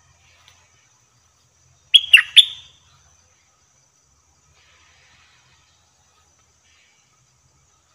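A bulbul calling once, about two seconds in: a short, loud phrase of two or three quick sharp notes that drop in pitch.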